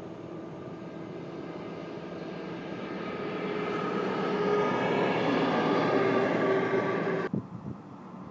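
NOHAB diesel locomotive with an EMD two-stroke engine running light past, its engine drone with a steady whine growing louder as it approaches. The sound cuts off suddenly about seven seconds in, leaving a quieter rumble.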